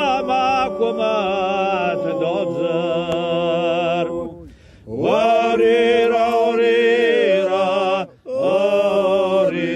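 Male voices singing a slow, chanted Circassian folk song about war, long held notes with a wavering vibrato. The singing breaks off briefly about halfway through and again near the end before resuming.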